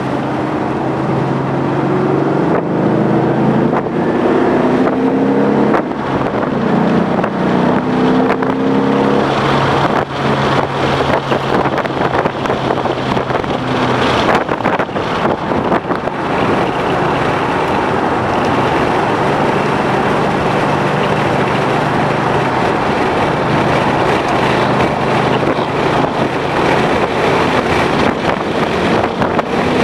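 Ford Mustang GT's 5.0-litre V8 under hard acceleration on track. Its pitch climbs and drops back several times in the first ten seconds as it runs up through the gears, then holds steadier under heavy wind and road noise.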